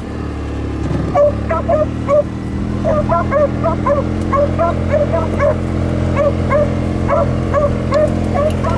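Two beagles baying on a rabbit's scent line: a run of short, quick chop-mouth calls that starts about a second in and becomes a steady string of several calls a second. Under the calls, the engine of a Kubota utility vehicle runs with a steady hum.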